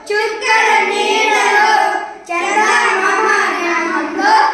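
A group of young boys singing a Telugu children's action song together, in two sung phrases with a short break about two seconds in.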